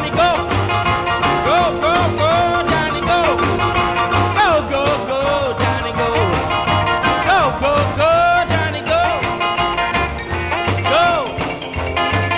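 Music played back from a cassette on a restored Technics RS-M205 deck, recorded straight from its output: an upbeat song with a repeating bass line and a sliding, bending lead line above it.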